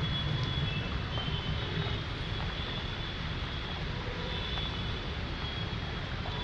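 Steady rushing of rain and floodwater in a flooded concrete underpass, with a deep continuous rumble.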